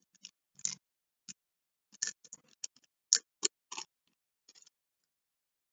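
Foil wrapper of a Topps baseball card pack crinkling as the pack is torn open and the stack of cards is pulled out: a run of short, sharp crackles that stops near the end.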